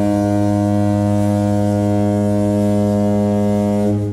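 A single loud, steady low-pitched drone with many overtones, an intro sound over the title card, holding one pitch and starting to drop away right at the end.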